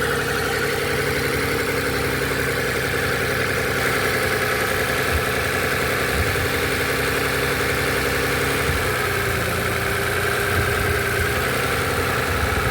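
Six-cylinder engine idling steadily while it is checked for a misfire on cylinder six; its note shifts slightly about nine seconds in.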